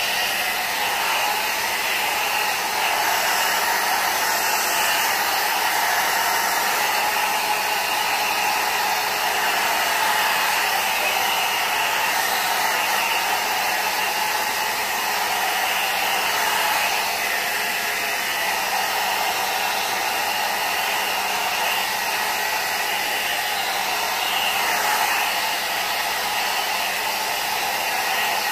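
Handheld electric hair dryer running steadily, blowing on long wet hair, its level shifting slightly as it is moved around the head.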